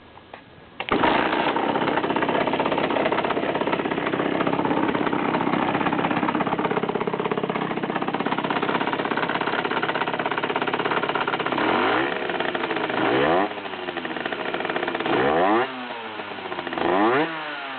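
50cc two-stroke motorcycle engine comes in sharply about a second in and idles steadily, then is revved three times, each rev rising and falling back. It carries an odd noise at idle and low revs that the owner traces to a month after replacing the crankshaft and clutch.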